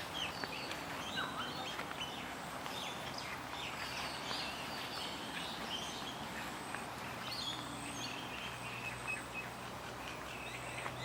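A chorus of several wild birds calling at once: many short chirps and whistles overlapping. A faint steady low hum runs underneath from a few seconds in.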